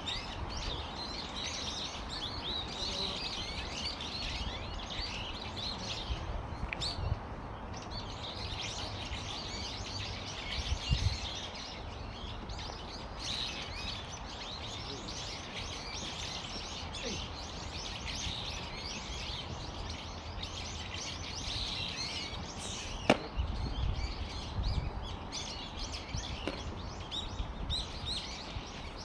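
A flock of small birds chirping constantly in a dense, overlapping chatter, with low gusts of wind rumbling on the microphone now and then. A single sharp knock about two-thirds of the way through is the loudest moment.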